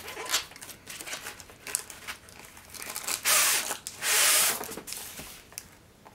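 Cardboard box being opened and a rolled paper canvas slid out of it: small scrapes and clicks of cardboard handling, then two loud swishes of paper sliding against cardboard about three and four seconds in.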